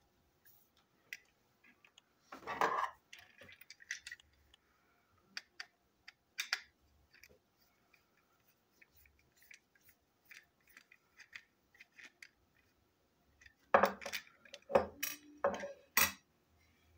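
Small clicks, taps and scrapes of a plastic toy train coach being handled and unscrewed with a screwdriver. There is a louder rattle about two and a half seconds in and a run of sharper knocks and clacks near the end.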